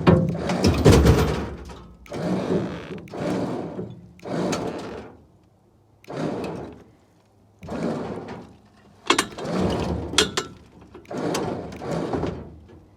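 Winch hauling a scrap pickup's rear axle and deck onto a trailer in a run of short pulls, a grinding mechanical rasp about once a second with brief pauses between, and a couple of sharp metal clicks near the end.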